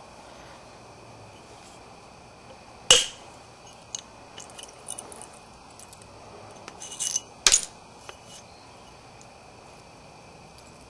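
A copper-tipped billet striking the edge of a Florida coral preform twice, sharp stone-on-metal clicks about four and a half seconds apart, with lighter ticks and scrapes between them as the edge is worked during flintknapping.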